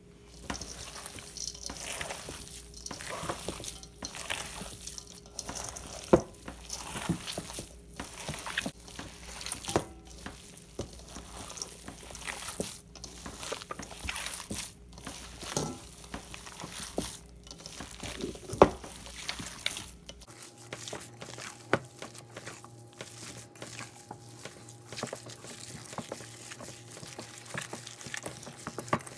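Hands squishing and kneading raw ground beef mixed with chopped onion in a stainless steel bowl: irregular wet squelching and smacking, with a couple of sharper clicks.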